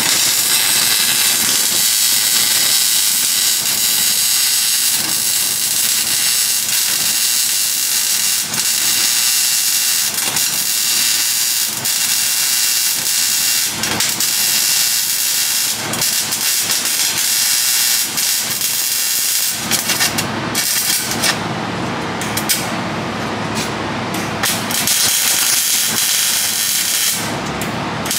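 Power tool cutting sheet metal, giving a loud, steady hiss that stops and starts several times in the last third.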